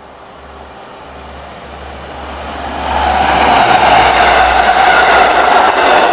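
Bilevel commuter train passing close on the near track, cab car leading: wheel-and-rail rumble that builds as it approaches and is loud and steady from about three seconds in as the coaches go by.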